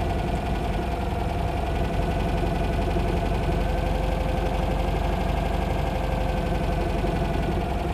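Citroën 2CV's newly fitted Burton 652 air-cooled flat-twin engine idling at a steady level. The owner finds the idle a bit up and down and is not sure why.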